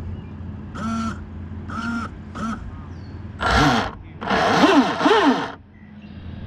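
Bird calls: several short calls, then two louder, harsh calls a little past the middle.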